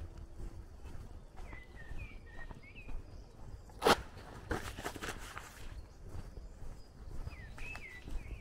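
Footsteps walking along a dirt road, with birds chirping now and then. A single sharp bang about four seconds in, followed by a few fainter knocks.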